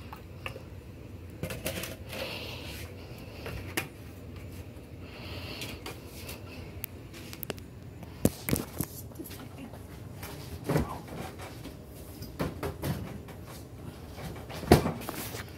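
Handling noise: scattered knocks and clicks as the phone is picked up and moved around a kitchen counter, with one sharp knock near the end.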